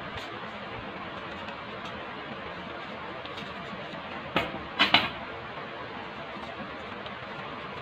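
Steady background hiss, with a few sharp taps or clicks bunched together about four to five seconds in: one, then a quick double.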